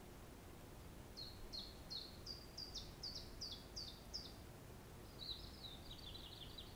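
A small songbird singing: about nine short, high notes, each sliding downward at roughly three a second, then after a short pause a faster run of falling notes, over a faint steady background hiss.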